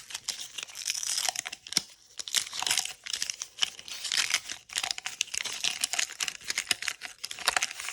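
Wax-paper wrapper of a 1985 Topps baseball card pack being torn open and crinkled by hand, a dense run of irregular crackles and rustles.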